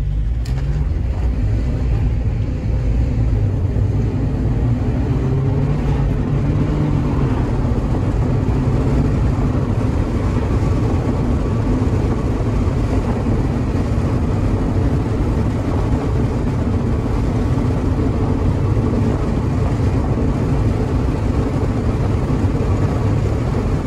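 Mazda MX-5 NB's four-cylinder engine and tyre noise heard from inside the cabin while driving at a steady cruise, a steady drone throughout.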